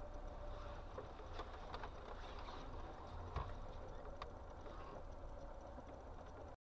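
Faint low rumble of a car's engine and tyres heard through a dashcam microphone inside the car, with a few faint clicks and knocks, the loudest about three and a half seconds in. It cuts off abruptly near the end.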